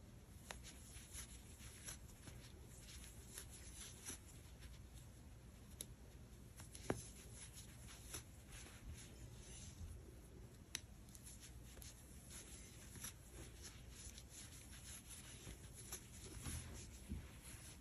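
Faint rustling and light ticking of a crochet hook working chunky acrylic yarn, as single crochet stitches are made along a blanket edge, with two sharper clicks partway through.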